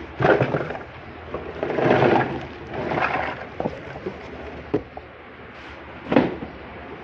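Small toy kitchen pieces and their packaging being handled, in three rustling, scraping bursts in the first few seconds, followed by a few sharp clicks and taps, the loudest near the end.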